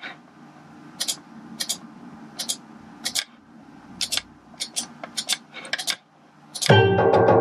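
Sharp clicks of computer input, many of them in quick pairs, as notes are entered in music-notation software. Near the end the software starts loudly playing back the notated melody with many pitched notes.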